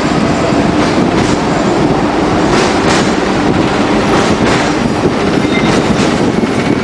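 Street tram running along its rails, heard from on board, with a steady loud rumble and rattle and a few sharp clicks of the wheels over rail joints.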